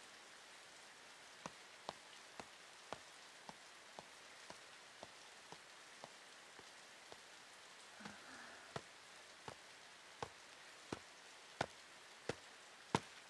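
Steady light rain with slow, evenly spaced footsteps clacking on a wet path, getting louder toward the end as they come closer.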